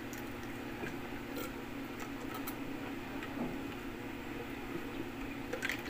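Quiet indoor background: a steady low hum with a few faint ticks scattered through it.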